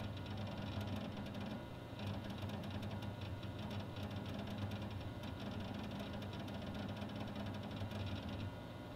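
Nearly dead hard drive in a Dell Dimension 5000 desktop, noisy and clicking rapidly as it works to load a window, over a steady low hum.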